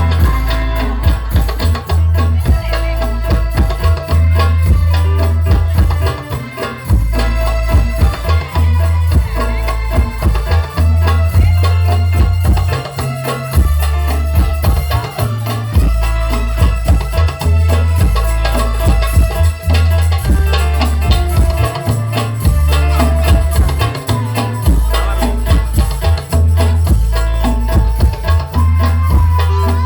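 Sholawat devotional music played loud through a sound system under test, with a heavy bass that pulses in blocks under the melody and percussion.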